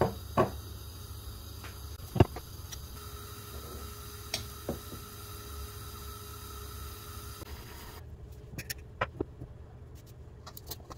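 Sharp, scattered clinks and knocks of a metal spoon against a glass mixing bowl as potato samosa filling is scooped in and mixed, over a steady low hum. Near the end come a few quicker, lighter taps.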